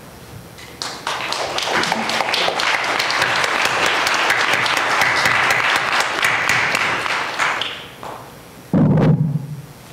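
Congregation applauding, many hands clapping, starting about a second in and dying away near eight seconds. A short, loud low thump follows near the end.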